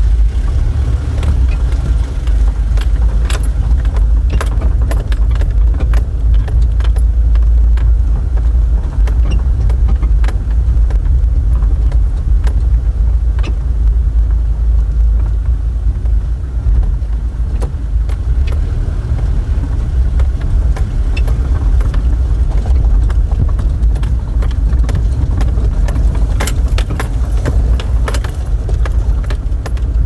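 Car driving over a rough gravel track, heard from inside the cab: a steady low rumble of engine and tyres, with frequent clicks and rattles from stones and loose fittings.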